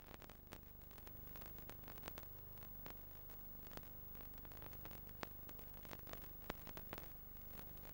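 Faint hiss and a low steady hum with scattered clicks and crackles: the background noise of an old videotape recording, with no music or voices.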